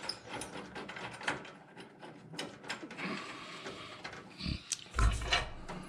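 Ratchet wrench clicking in short irregular runs while a nut is worked on, with a louder metal clunk about five seconds in.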